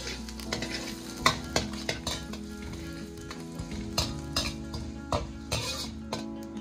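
Sliced onion and minced garlic sizzling in hot oil in a steel wok while a perforated metal ladle stirs them, clinking and scraping against the wok at irregular intervals.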